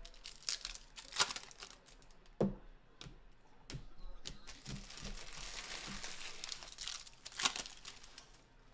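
A stack of glossy chrome trading cards handled and flipped through by hand: the cards slide against each other with sharp clicks and snaps, a longer rustling slide in the middle, and a louder snap near the end.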